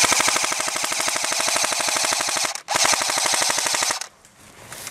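Airsoft rifle firing full-auto at close range, a rapid, even rattle of shots. One long burst of about two and a half seconds, a brief break, then a shorter burst that stops about four seconds in.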